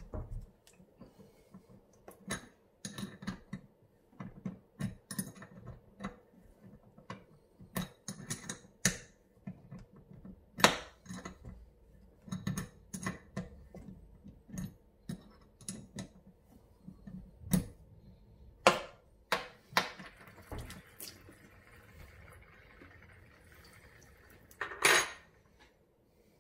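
Metal clinks and knocks of a 14 mm spanner working on the cartridge nut of a chrome Franke kitchen mixer tap as the cartridge is undone, irregular, with a louder clunk near the end.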